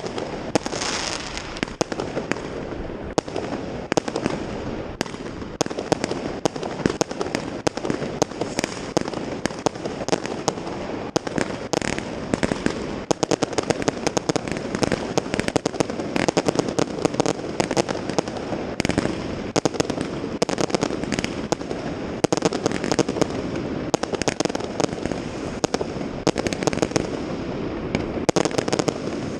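New Year's fireworks and firecrackers going off all around without a break: many sharp bangs a second over continuous crackling.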